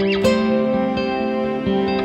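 Instrumental background music: a melody of plucked guitar-like notes over held tones.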